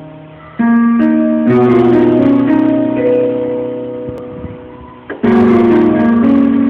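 Electronic keyboard playing slow held chords in a piano-like voice. Each chord rings and fades before the next is struck, with new chords coming in about half a second in, at a second and a half, and again near the end.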